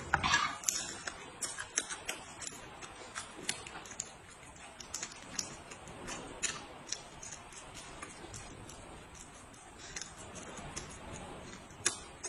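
Irregular small clicks and crackles of eating at a table: shrimp shells being peeled by hand and chopsticks tapping a bowl, with a louder rustle at the start.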